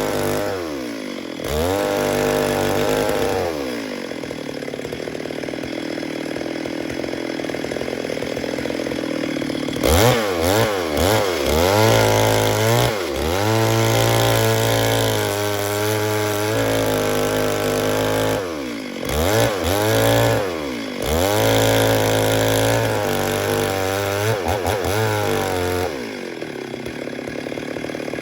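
Stihl MS 382 two-stroke chainsaw running at high speed, cutting wood. Its pitch drops and climbs again several times, between stretches held steady.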